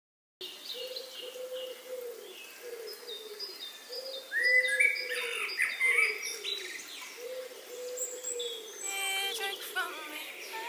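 Several birds calling: a low note repeated in runs, roughly twice a second, under higher chirps and short whistled notes.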